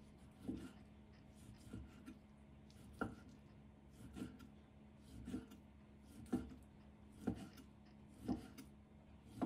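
Chef's knife slicing raw pork on a round wooden chopping board, the blade knocking on the wood about once a second.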